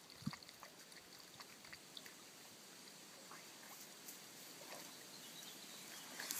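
Quiet pond-side ambience with faint splashing and sloshing of water from Tibetan mastiff puppies swimming and a person wading, scattered small ticks and one brief knock about a third of a second in.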